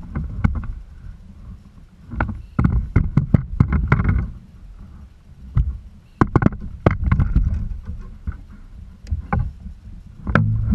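Handling noise on a kayak: irregular clusters of sharp clicks and knocks with low thumps, as a landed largemouth bass and a fishing rod and reel are moved about against the hull.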